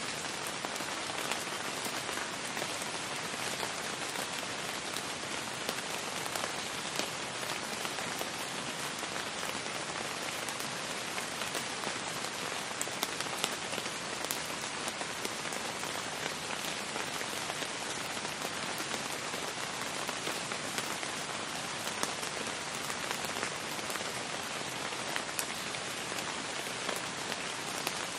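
Steady rain falling, a constant hiss with many individual drops ticking on hard surfaces.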